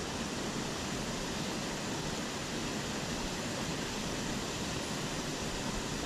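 Steady rushing of water spilling over a small weir or waterfall into a stream pool.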